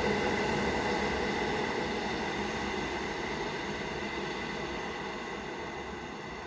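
An EN57 electric multiple unit going away after passing, its rumble and wheel noise fading steadily.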